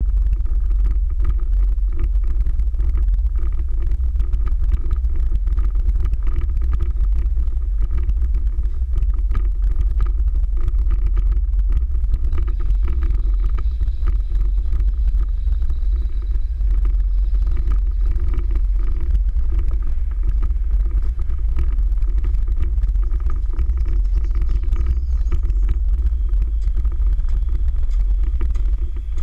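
Car driving along a slushy, icy road, heard from a camera mounted on its hood: a steady low rumble of wind and road noise.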